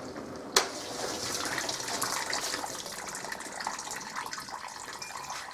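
Zanussi ZDT5152 dishwasher washing normally: the circulation pump runs and the spray arms throw water around the tub, a steady watery rush. One sharp click sounds about half a second in.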